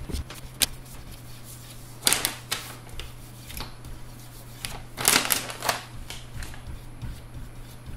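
Paper backing crackling and rustling as it is peeled off a self-adhesive PEI sheet, while the sheet is pressed down by hand onto a 3D printer's heated bed. There are two louder spells of crackling, about two seconds in and about five seconds in, over a steady low hum.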